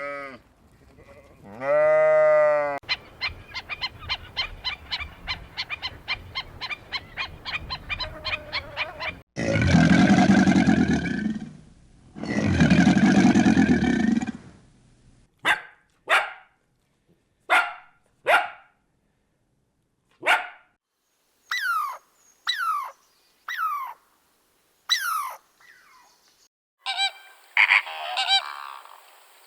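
A string of farm animal calls. A pitched call comes about two seconds in, then a rapid run of repeated calls, then two long loud calls. Short separate honking calls from fowl fill the second half.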